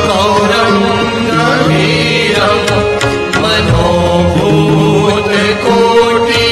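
Instrumental interlude of a Hindu devotional song to Shiva: melodic instruments over a moving bass line and a steady percussion beat.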